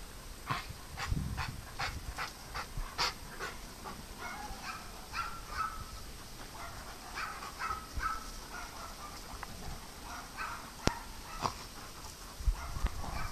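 Dogs barking in a quick run of about three barks a second, then scattered short yelps.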